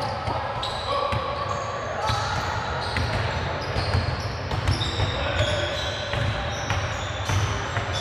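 Pickup basketball game on a hardwood court: the ball being dribbled and bouncing, with sneakers squeaking in short chirps of shifting pitch as players cut and stop.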